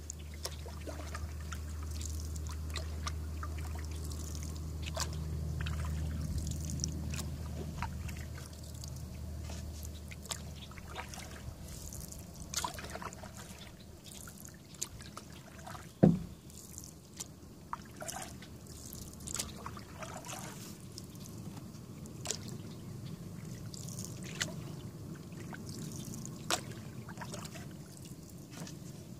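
Canoe paddling on calm water: water trickling and dripping with small, scattered splashes and ticks. A single sharp knock about halfway through stands out above the rest, and a low rumble fades away in the first third.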